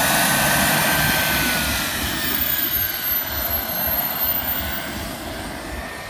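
Aircraft flying past at an airshow: loud engine noise with a whine that drops in pitch as it passes, fading away toward the end.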